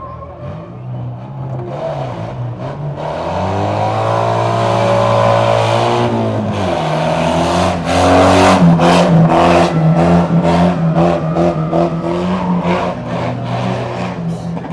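Banger racing cars' engines revving hard as they race past, the pitch climbing and then dropping sharply around six and a half seconds in. It is loudest from about eight seconds in as a car passes close, with rapid sharp cracks over the engine noise.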